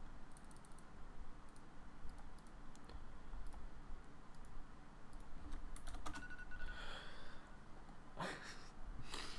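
Computer keyboard and mouse clicking in quick, irregular taps. A few louder, longer noises come in near the end.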